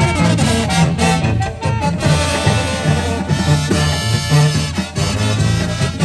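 Live Oaxacan banda brass band playing a dance tune: tubas carry a bouncing bass line under trumpets and saxophones, with drums keeping the beat.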